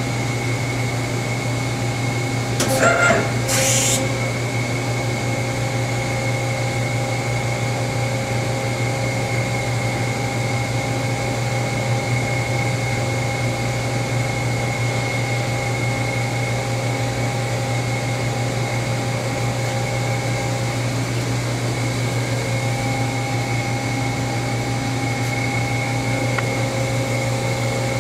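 Doosan Lynx 220LM CNC turning center running a program: a steady hum with a constant whine above it. A brief, louder hiss comes about three seconds in.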